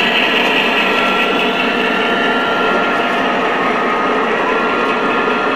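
A model train of diesel locomotives and freight cars rolling past close by: a steady whir of small motors and wheels running on the track.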